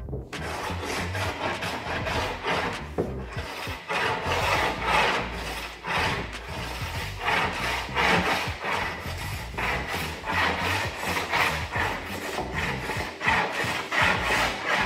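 A hand tool rasping along the edge of a thin MDF skin on a ribbed wooden former, in a series of dry scraping strokes about one a second, trimming the edge flush.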